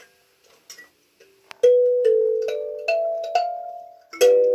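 A short tune of bell-like chimes: about six struck notes, each ringing out and fading, ending on a chord of several notes that rings on.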